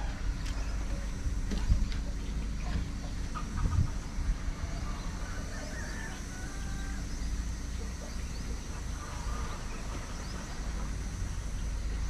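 Chickens clucking now and then, faint, over a steady low rumble.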